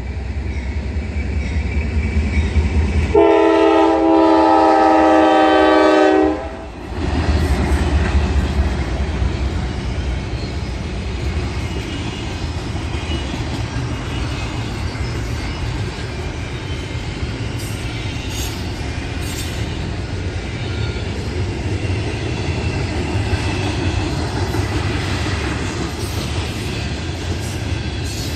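Locomotive horn sounding one long blast a few seconds in, lasting about three seconds, followed by the steady rumble of a passing train with its wheels running on the rails.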